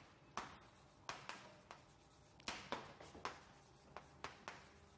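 Chalk writing on a chalkboard: faint, irregular taps and short scratches of the chalk strokes.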